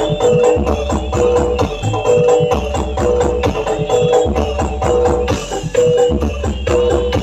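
Mberot-style remix music played loud through a large sound system stacked with 24 subwoofers: heavy pulsing bass under busy percussion and a short high note repeating on the beat.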